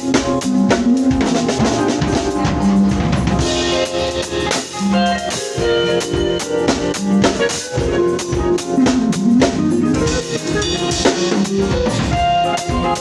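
A band playing, with a drum kit (kick and snare) keeping a steady beat under sustained pitched instruments, as during a sound check.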